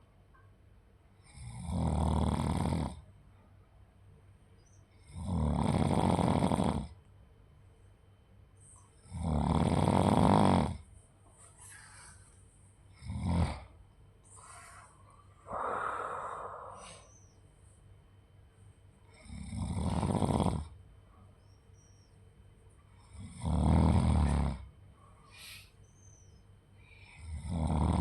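A sleeping person snoring: one loud snore about every four seconds, with quiet pauses between, and a shorter, softer sound midway through.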